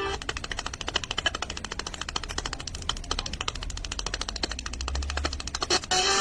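A rapid, even train of sharp clicks, many a second, over a low hum that swells briefly near the end.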